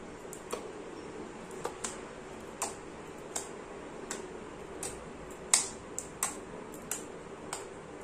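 Homemade sand slime pressed and poked by fingertips, giving about a dozen sharp, irregular clicking pops, the loudest about five and a half seconds in.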